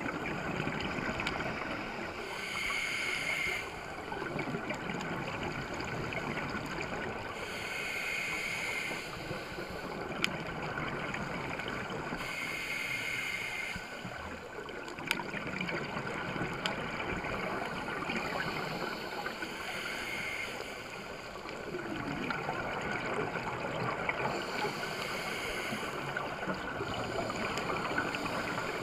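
Scuba diver breathing through a regulator, heard through an underwater camera housing: a short hiss of inhaled air about every five seconds, five times, with the gurgle and rush of exhaled bubbles in between.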